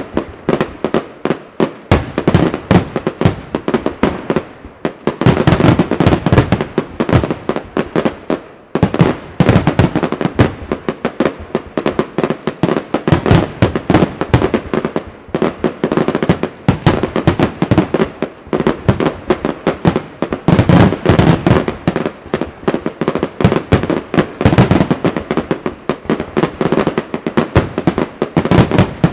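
Weco professional fireworks display: aerial shells bursting in quick succession, a dense, unbroken run of loud bangs, several a second.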